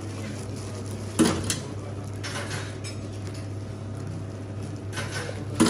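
Clear plastic polybag crinkling in several short bursts as hands press it flat and fold it around a stack of denim jeans, the sharpest about a second in and at the very end, over a steady low hum.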